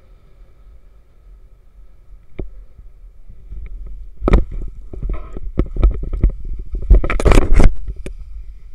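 Low, uneven rumble on the microphone with a run of knocks and scrapes that starts about two seconds in and grows louder, loudest near the end.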